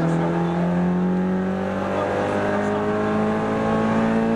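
Rally car engine heard from inside the cabin, pulling hard in one gear, its pitch rising steadily as the car accelerates.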